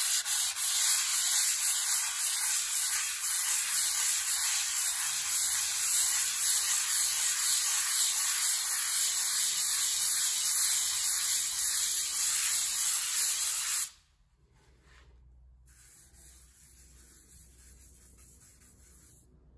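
A loud, steady hiss against the wall that cuts off abruptly about fourteen seconds in, leaving only faint room noise.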